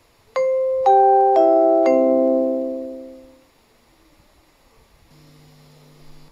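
Falling four-note electronic chime from a station public-address speaker. Four struck tones, each lower than the one before, ring and fade out over a couple of seconds, closing the announcement. A faint steady hum comes in near the end.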